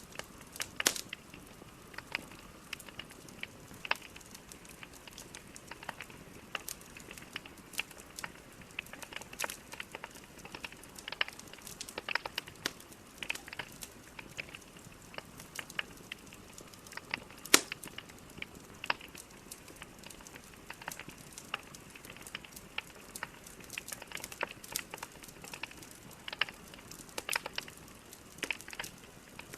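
Wood fire burning in a fireplace: logs crackling and popping at irregular intervals over a low steady hiss, with one sharp pop standing out about two-thirds of the way through.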